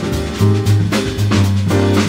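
Recorded jazz quartet playing: drum kit and bass carry a steady beat, with the band of piano, bass, sax and drums.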